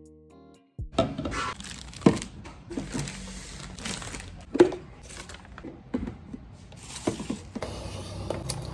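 Plastic packaging crinkling and rustling as new plastic storage containers are handled and unwrapped, with a few sharp knocks of containers and lids set down on the counter.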